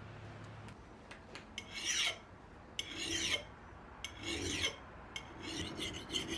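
Hand filing, four slow rasping strokes about a second and a half apart, the last one broken into quicker short strokes.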